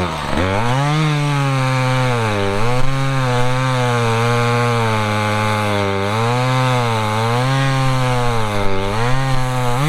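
Chainsaw cutting through a log under load, its pitch sagging and recovering every second or two as the chain bites. Near the end it revs up briefly and then winds down as the cut finishes.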